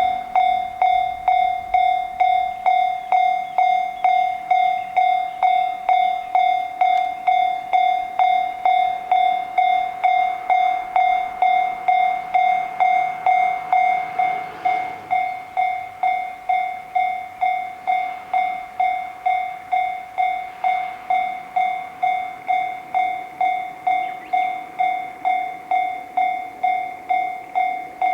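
Japanese railroad crossing warning bell ringing 'kan kan': one bright pitched ding repeated evenly, a little under two strikes a second. The bell signals that a train is approaching and the crossing is closed.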